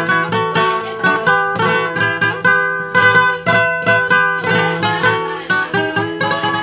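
Solo acoustic guitar playing an instrumental interlude: a picked melody over bass notes, in a steady rhythm.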